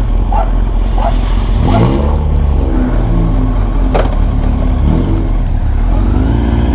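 A motor vehicle's engine running over a steady low rumble, rising in pitch as it revs about two seconds in. A sharp click comes about four seconds in.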